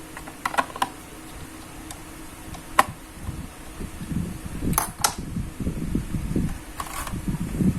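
Sharp clicks and taps of a screwdriver and small metal screws being handled and fastened into a laptop's chassis, with low rustling handling noise, over a steady fan-like hum.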